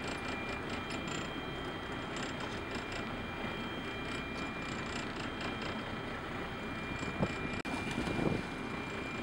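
Steady rumble of the boat's engine, with rapid mechanical clicking of spinning reels being cranked against fish. About eight seconds in comes a brief splashing burst as a hooked fish thrashes at the surface.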